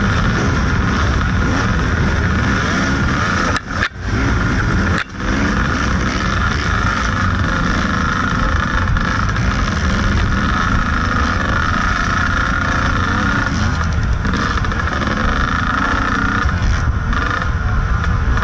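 Kawasaki KDX 220 two-stroke dirt bike engine running hard under racing load, with other racers' dirt bikes close by. The sound dips sharply twice, about four and five seconds in.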